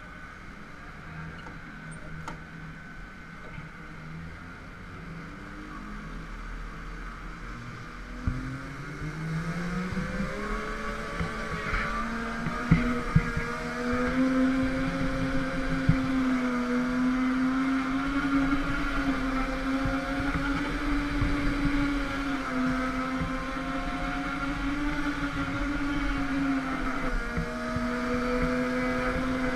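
Go-kart motor heard from on board the kart, quiet at first, then rising steeply in pitch and loudness about a third of the way in as the kart accelerates, and holding a high, slightly wavering pitch through the corners. A few sharp knocks come near the middle.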